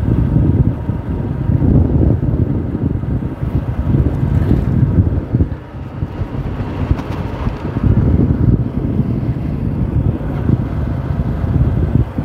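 Wind buffeting the microphone of a camera carried on a moving motorcycle: a loud, uneven low rumble that eases briefly about halfway through.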